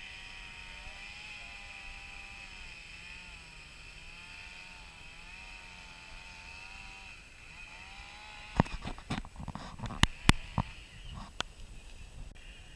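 A distant motor drones with a slowly wavering pitch over a steady high hiss. From about two-thirds in, a run of loud, sharp knocks and rustles close to the microphone.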